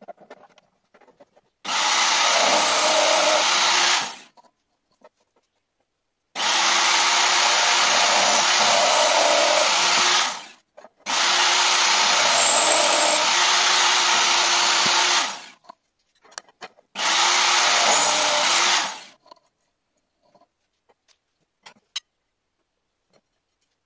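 Small bench drill press motor running four times, drilling holes in a clamped metal plate. Each run starts abruptly and winds down over about half a second, with light clicks and knocks of handling in between.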